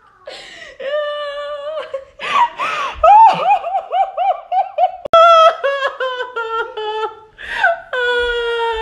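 A woman laughing uncontrollably in high-pitched squeals: long held squealing notes at the start and near the end, with a fast run of short laughs in between.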